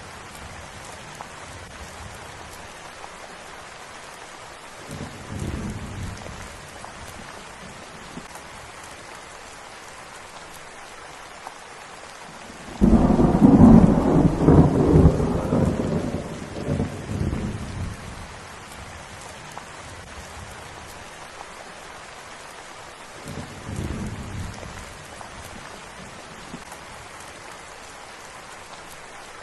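Steady rain with thunder rolling over it. A loud clap breaks in about halfway and rumbles for several seconds, and fainter distant rumbles come before and after it.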